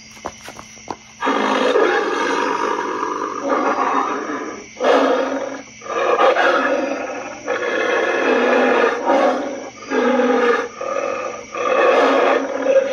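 Animatronic werewolf Halloween prop playing its growl sound effect: long, rough, snarling growls with brief breaks between them. A few sharp clicks come just before it starts.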